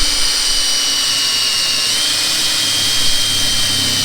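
Electric drill running steadily with a high whine as a standard bit bores a pilot hole through sheet-metal car body panel; the pitch steps up slightly about two seconds in.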